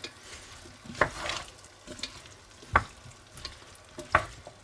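Wooden spoon stirring and scraping through chunks of potato, mushroom and meat in a cast-iron Dutch oven, knocking against the pot three times.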